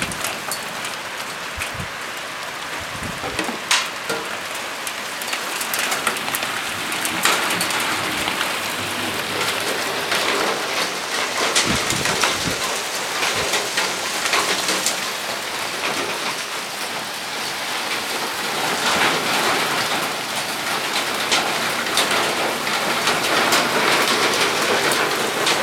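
Heavy rain pouring steadily, with sharp taps from nearby drops scattered through it. It grows heavier about a quarter of the way in and again near the end.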